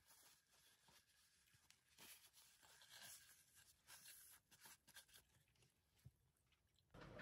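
Near silence, with faint rustling and small clicks as a paper tissue is rubbed over the top of an opened aluminium drink can.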